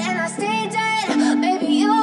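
Music: a wavering lead melody over a held low note that steps up to a higher note about a second in.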